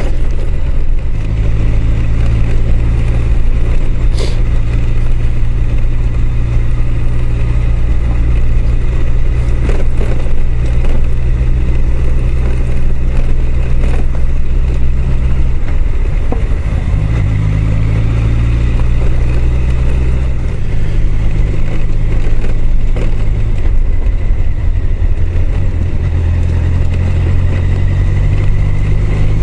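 Honda CBR1000F's inline-four engine running steadily while riding a gravel road, heard from the rider's helmet. The engine note shifts about halfway through and again a few seconds later.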